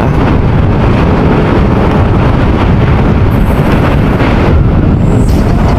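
Motorcycle riding noise: steady wind buffeting the microphone over engine and road noise, loud and dense at the low end.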